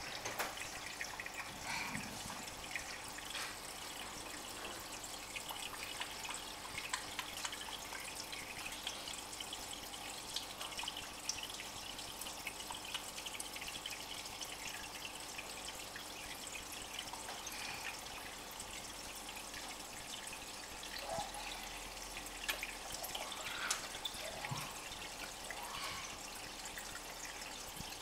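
Aquarium water trickling and dripping steadily, with many small scattered drips over a faint steady hum.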